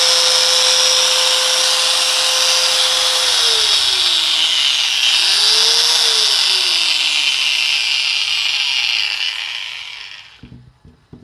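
Bosch 4-inch angle grinder running free at high speed on a test after repair of its field coil, working normally. Its steady whine falls away and rises again midway, then the motor winds down and stops about ten seconds in.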